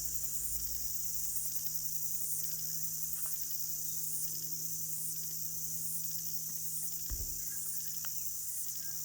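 A chorus of insects chirping high-pitched in pulses that repeat about once a second, over a steady low hum, with a brief low bump about seven seconds in.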